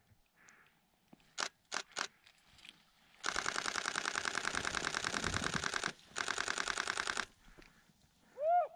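Camera shutter firing: a few single clicks, then a long rapid burst of continuous shooting lasting nearly three seconds, a brief pause, and a second shorter burst.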